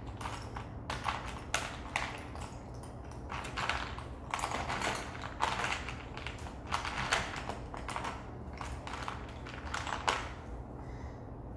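Crayons and markers clattering in a plastic case as a hand rummages through them: irregular clicks and short rattles.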